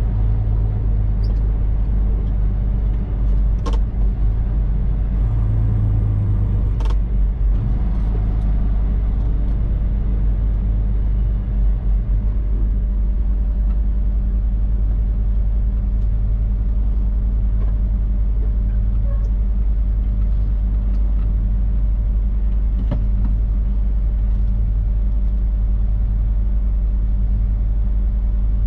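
Semi-truck's diesel engine and road noise heard inside the cab while driving: a steady low drone, with two sharp clicks about three seconds apart a few seconds in.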